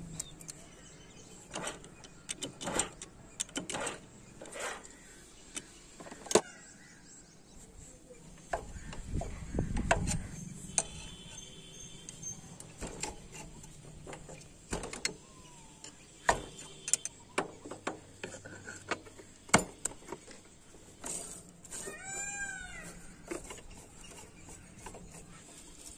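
Scattered metal clicks, clinks and knocks of hand tools and engine parts as the clutch assembly and right-side crankcase cover are fitted to a Hero Honda Passion Pro engine, with a heavier thump about ten seconds in.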